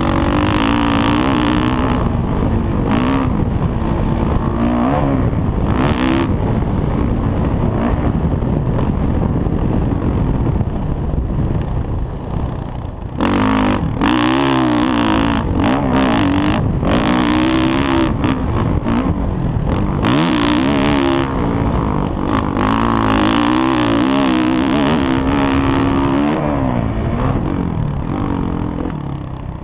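Dirt bike engine being ridden hard, its pitch climbing and falling again and again with the throttle and gear changes, easing off briefly about halfway through. Wind buffets the helmet camera's microphone.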